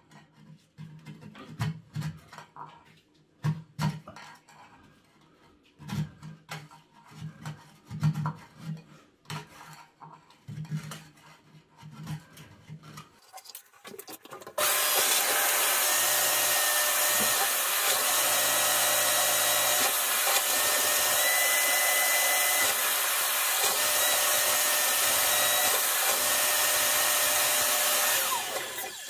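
A metal rod scraping and knocking inside a clogged bathroom floor drain, raking out hair and limescale. About halfway a suction machine starts with a loud, steady rush that holds level, its corrugated hose drawing on the drain, and it cuts off shortly before the end.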